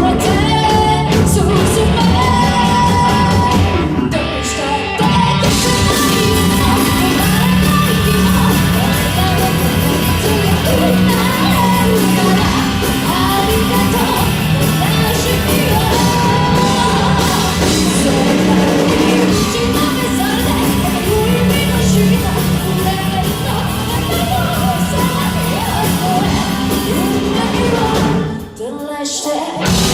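Rock band playing live in a hall, with singing over it. Near the end the music briefly drops out before the full band crashes back in.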